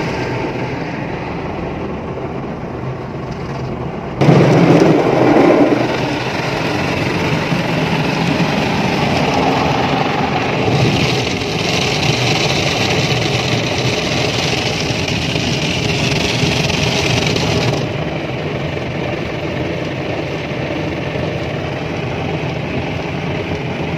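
Rotating brushes of an automatic car wash scrubbing over the car's windscreen and body, heard from inside the car. A steady noise that jumps suddenly louder about four seconds in and drops back a little near the end.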